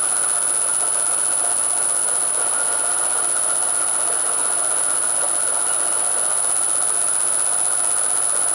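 NGF-110 milling machine's spindle running steadily at low speed through its gearbox, its motor fed from a frequency converter, with a steady high-pitched whine over the machine noise.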